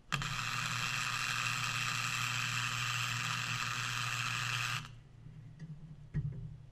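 Wire-feed welding arc burning on 3/8-inch steel where a square post meets its base plate: a steady hiss with a low hum that starts suddenly, runs nearly five seconds and cuts off abruptly. A couple of faint knocks follow.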